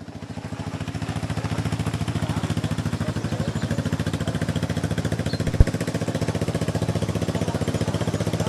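An engine running steadily with an even, rapid beat, fading in at the start, with a single sharp click about five and a half seconds in.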